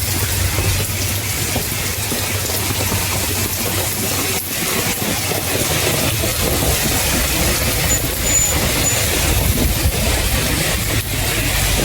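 Heavy rain falling in a steady dense hiss, with a low rumble of road traffic that grows louder in the second half.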